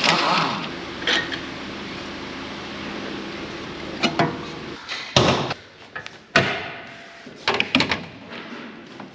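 Hand work on a car on a workshop lift: a series of separate sharp knocks and clicks from tools, parts and trim being handled. They are scattered through the seconds, several of them close together near the end.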